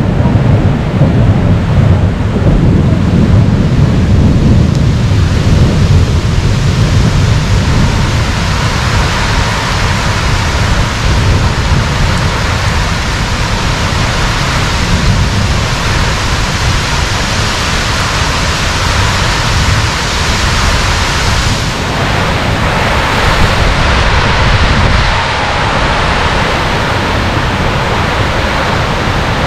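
Typhoon wind and heavy rain: a loud, steady rush of gusting wind through palm trees and driving rain. A heavy low rumble of wind buffeting the microphone is strongest in the first several seconds.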